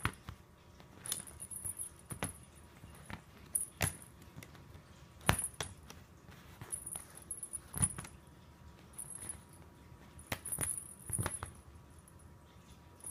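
Cat teaser wands being pawed and batted by a cat: irregular taps and clacks of the sticks and toys a second or two apart, with a light, high jingling.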